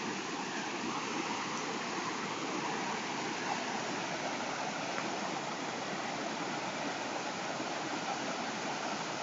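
A river in flood: fast, turbulent brown floodwater rushing steadily.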